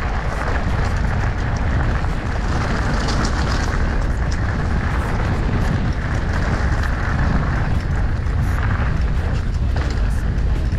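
Wind rumbling and buffeting on the microphone of a moving rider, a steady dense roar heaviest in the low end, with no clear engine note or voices.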